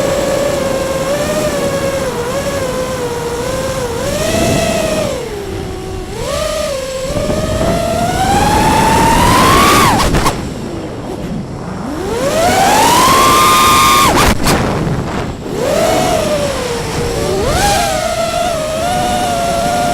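Electric motor whine of an FPV model aircraft, its pitch swinging up and down with the throttle. It climbs sharply twice, about halfway through and again a few seconds later, and each time cuts off abruptly as the throttle is chopped.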